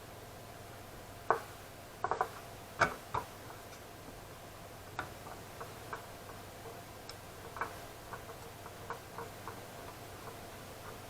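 Irregular light clicks and taps from handling small hard parts and tools of a graphics card being worked on by hand. A few sharper knocks come close together a second or so in, then lighter scattered ticks.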